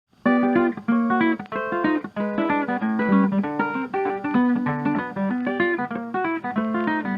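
Background music: an acoustic guitar piece of quick plucked notes, starting a moment in after a brief silence.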